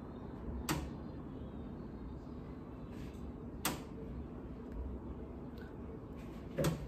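Three short sharp clicks, about three seconds apart, over a faint steady room hum.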